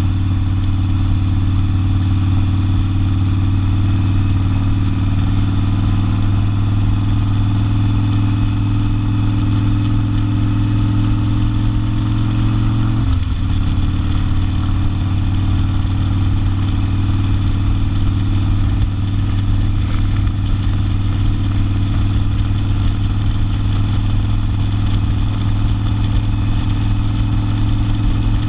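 Harley-Davidson Sportster air-cooled V-twin with open exhaust running steadily under way, with one short dip in the engine note about halfway through before it settles back to the same steady drone.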